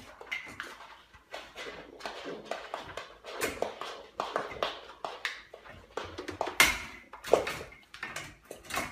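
Young goat kid's hooves tapping and clattering on a wooden floor and knocking against a baby gate, a run of irregular knocks and taps.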